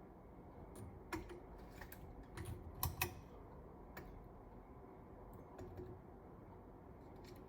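Scattered light clicks and taps of small parts being handled, with two sharper clicks close together about three seconds in, over a low hum.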